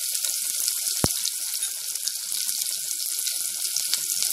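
Chopped onion sizzling in hot oil with mustard seeds for a tempering: a steady hiss with scattered crackles. A single sharp knock about a second in.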